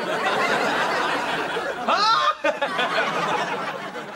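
Studio audience laughing, with a single high whoop about halfway through.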